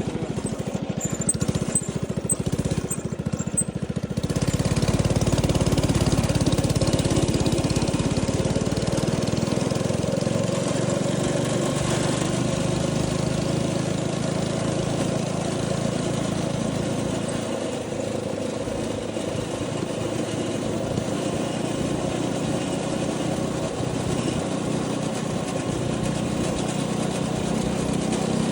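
Small single-cylinder 212cc go-kart engine running steadily. It gets louder and fuller about four seconds in.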